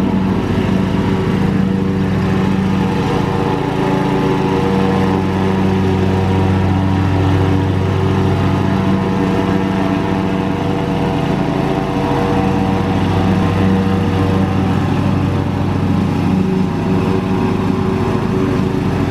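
Riding lawnmower's small engine running steadily under load while mowing grass.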